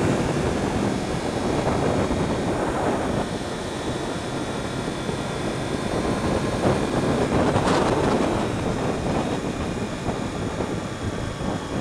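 Motorcycle riding steadily at road speed, heard from the rider's position: a dense rush of wind and road noise with the drone of a 2015 Yamaha YZF-R1's inline-four engine underneath.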